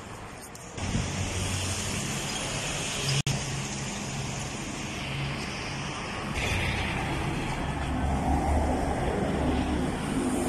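Street traffic: car and motorbike engines running with road noise. It gets louder suddenly about a second in and breaks off for an instant about three seconds in.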